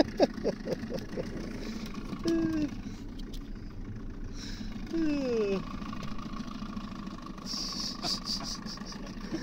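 Outboard motor running steadily at trolling speed, with a kokanee flopping on the boat's carpeted deck: a quick run of soft thumps in the first second.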